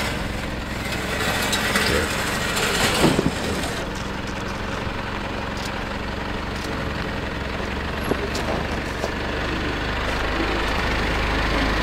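Mitsubishi Triton ute's engine running at a low crawl as it creeps over a rutted dirt track, a steady low hum that grows louder near the end as the ute comes close.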